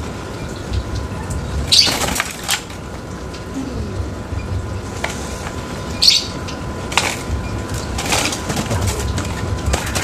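A white-breasted waterhen flapping its wings in a round bamboo bird cage in several short, sudden bursts as a hand reaches in to catch it, the cage bars rattling.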